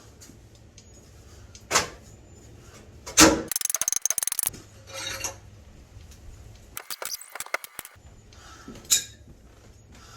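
Sledgehammer blows on a cast iron boiler: a few heavy metallic strikes, the loudest about three seconds in, with two bursts of rapid clattering as the iron is broken up.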